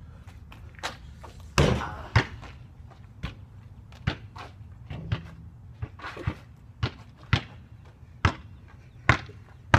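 A basketball bouncing on hard ground: about a dozen sharp thuds at irregular intervals, the loudest about one and a half and two seconds in, over a faint low rumble.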